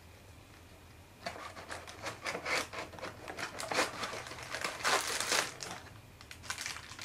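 Plastic packaging bag crinkling and cardboard box flaps rustling as a bagged cable is lifted out of a box, a run of sharp crackles starting about a second in.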